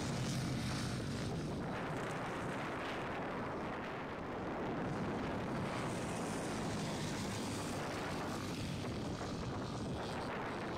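Dirt bike engines running as several small off-road motorcycles ride the track, a steady drone with no pauses.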